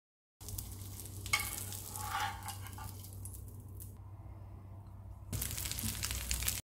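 Egg-and-flattened-rice adai sizzling in oil on a nonstick tawa, with a metal spatula scraping and clicking under it from about a second in. The sizzle drops lower in the middle and comes back louder near the end, then cuts off suddenly.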